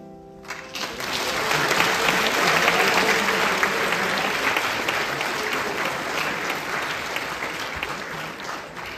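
An audience applauding, starting about half a second in as the last piano notes die away, swelling over the next two seconds, then slowly thinning and dying down near the end.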